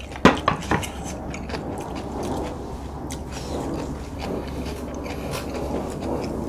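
Close-miked eating of army stew: three quick, sharp mouth-and-spoon sounds within the first second, then chewing. A steady low background noise runs underneath.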